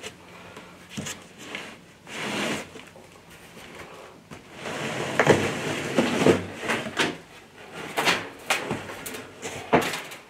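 A person climbing down from a raised perch: scattered knocks, creaks and scuffs, which come thicker and louder from about halfway through.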